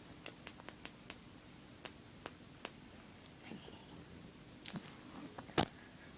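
A series of soft, irregular clicks and small wet smacks, a quick run of them at the start, a few more in the middle, and the sharpest click near the end, over a faint steady low hum.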